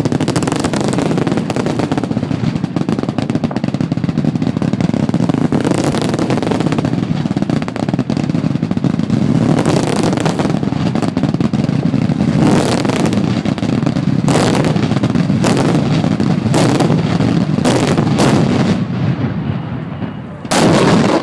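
Ground-level fireworks charges exploding in a rapid barrage that blends into one continuous rumble. From about halfway on, separate loud booms stand out, and a last big blast comes at the very end.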